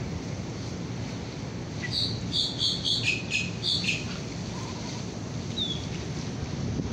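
A bird chirping a quick run of short high notes for about two seconds, starting about two seconds in, followed by a single short falling chirp near the end, over a steady low background noise.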